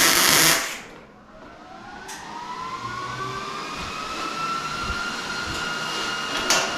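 Compressed-air blowgun cooling a fresh weld on sheet metal: a short loud blast of air, then a steady hiss with a whine that rises in pitch over a few seconds and then holds steady.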